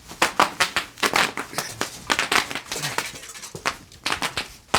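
Bubble wrap crinkling and popping under pressure in a rapid, irregular run of sharp pops.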